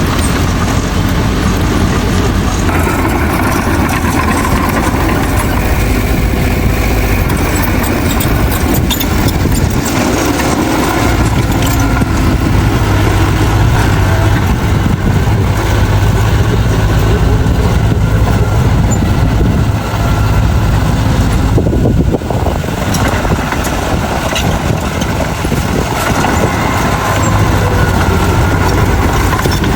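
Heavy diesel engine of earthmoving machinery running steadily. Its low rumble swells for stretches and dips briefly about two-thirds of the way through.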